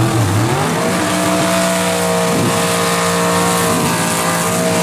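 Gasser-style 1955 Chevrolet drag car doing a burnout. Its engine revs up quickly from idle about half a second in, then is held at high, steady revs while the rear tyres spin and smoke.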